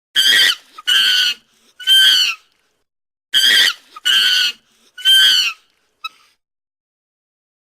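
Chimpanzee screaming: six loud, high-pitched shrieks of about half a second each, in two bursts of three about three seconds apart.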